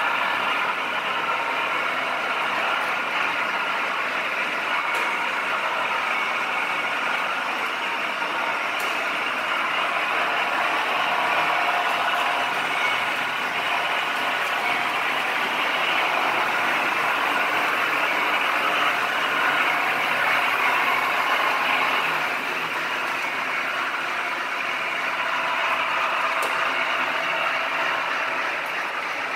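Märklin HO model trains running on the layout: a steady whirring of the locomotive motors and the rolling of wheels over the metal track.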